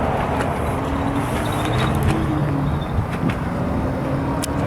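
A motor running steadily with a low, slightly wavering hum, with a few faint clicks and taps over it.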